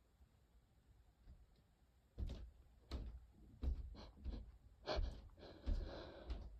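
A person with a cold sniffling and coughing lightly: about six short, sharp bursts, starting about two seconds in.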